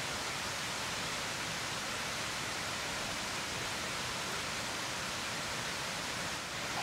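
Steady, even rushing hiss with no distinct events.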